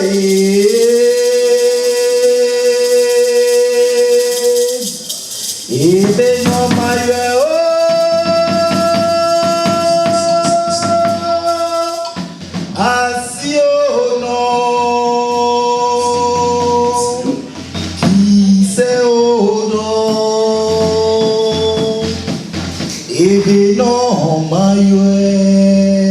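Music: a singing voice holding long notes that slide up into pitch, with rhythmic percussion and bass joining about six seconds in.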